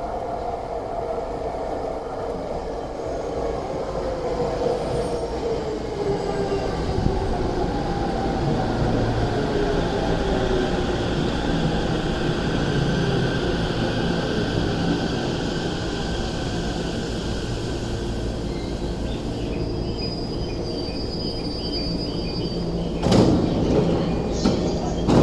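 JR E231-0 series electric commuter train pulling into the platform and braking to a stop, its motor whine falling steadily in pitch over the first dozen seconds. Near the end the sliding doors open with a sharp knock.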